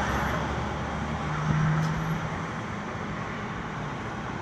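Street traffic noise, a steady wash of road vehicles, with one vehicle's engine hum swelling about a second and a half in and then easing off.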